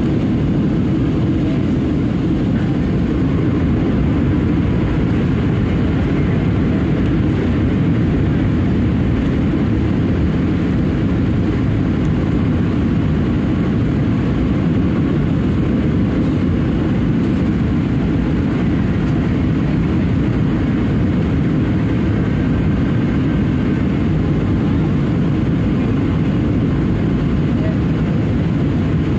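Steady cabin noise inside a Boeing 737-700 on final approach: its CFM56-7B engines and the airflow over the wing with flaps extended, a constant low rumble with no changes.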